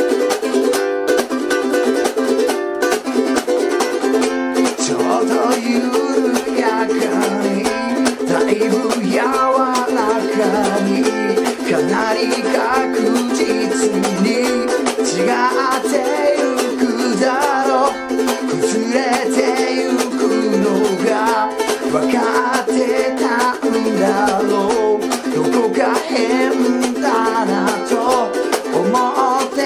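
Ukulele strummed fast and hard in a sixteenth-note rhythm: a G7 interlude, then F and G7 chords. A man's singing voice comes in over it about five seconds in.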